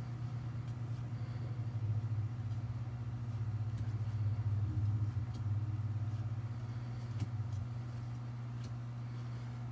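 A steady low hum or rumble that swells slightly through the middle, like an engine idling or a machine running nearby. Over it are faint clicks of baseball cards being flipped by hand.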